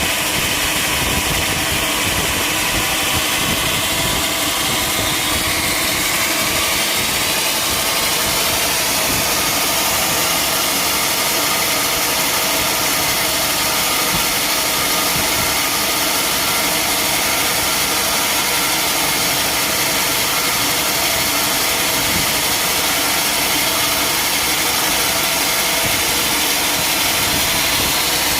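Sawmill machinery running steadily, a loud, continuous mechanical noise with no pauses or impacts.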